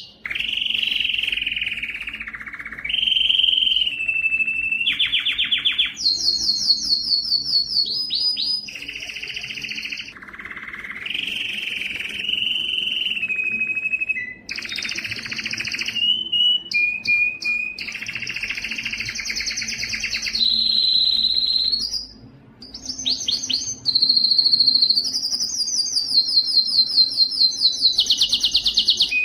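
Canary singing a long song made of rapid trilled runs: each run is one note repeated quickly for a second or two, then the song switches to another run at a different pitch, some high and clipped, some lower and sliding downward.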